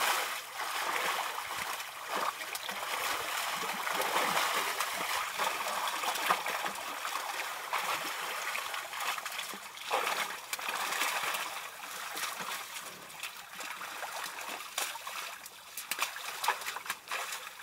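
Wet mud and water sloshing and splashing as young African elephants roll and wallow in a muddy waterhole, in an irregular run of splashes that grows somewhat quieter near the end.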